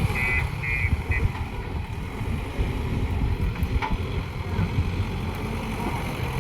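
Diesel engine of a JCB 3DX 76 HP backhoe loader running with a low, uneven rumble. A high reversing-alarm beep repeats about twice a second and stops a little over a second in.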